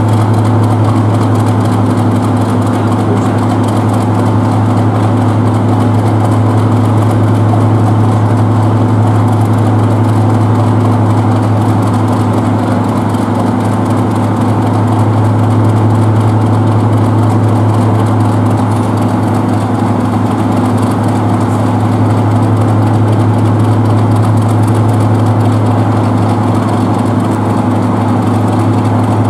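Class 31 diesel-electric locomotive's English Electric V12 diesel engine idling steadily with a deep, even hum, just after a cold start while it is still cold and pouring out thick exhaust smoke (clag).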